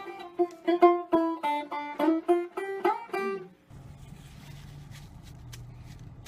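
Plucked-string music, a quick run of single picked notes, that cuts off about three and a half seconds in. After it comes a low steady hum inside the car, with a few faint clicks.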